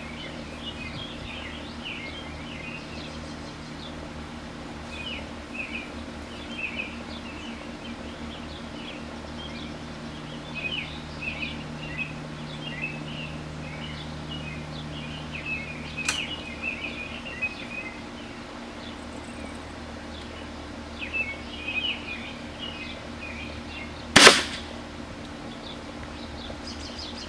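Birds chirping, with a single sharp crack of a .177 Crosman Phantom air rifle shot near the end, the loudest sound, and a fainter click some eight seconds before it.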